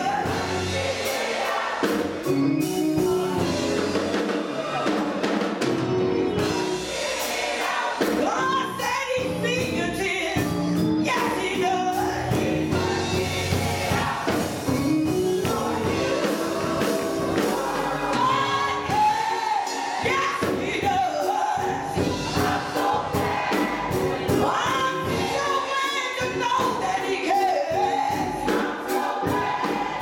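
Gospel choir singing, led by a woman soloist singing into a microphone over the group.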